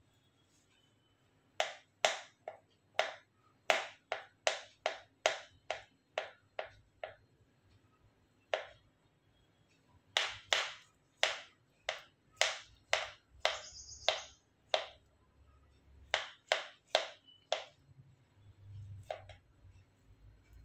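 Knife blade chopping down through a potato onto a plastic cutting board: runs of sharp knocks, about two or three a second, broken by short pauses.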